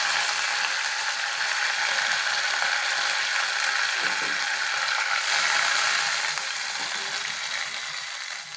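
Fresh curry leaves and mustard seeds spluttering and crackling in hot oil, the tadka (tempering) stage. It is a dense, continuous crackle that fades gradually near the end as the leaves' moisture cooks off.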